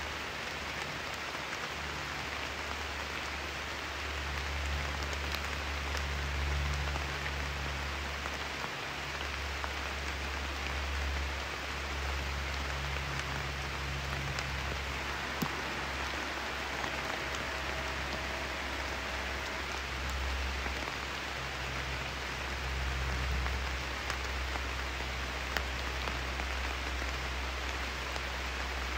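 Steady rain falling, with scattered sharp drip ticks over an even hiss and a low rumble underneath.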